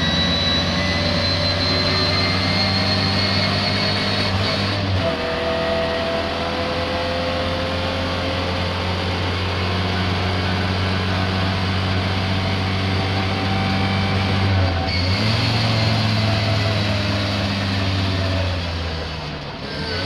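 Racing car engine running hard and steadily; its note drops in pitch about five seconds in, climbs again about fifteen seconds in, and eases off briefly near the end.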